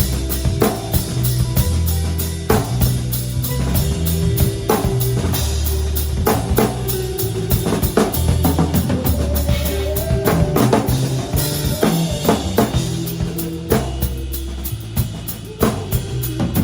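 A small band playing a groove: a drum kit with kick, snare and a steady fast hi-hat or ride pattern, over held electric bass notes that change every second or so, with guitar lines in the middle.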